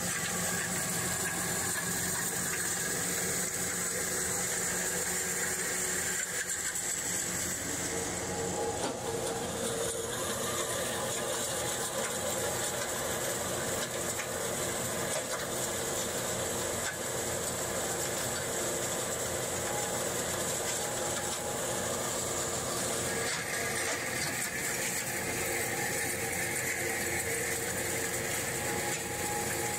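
Ore milling plant machinery running steadily, a continuous mechanical hum made of several held tones over an even noise. The mix of tones shifts a little about eight seconds in and again near the end.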